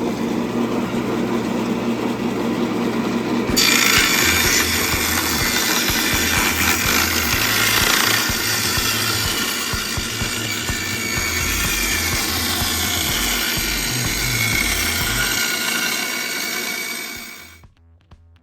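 1950s Sears Craftsman table saw running, then cutting through wood from about three and a half seconds in: a loud, steady cut that cuts off suddenly near the end.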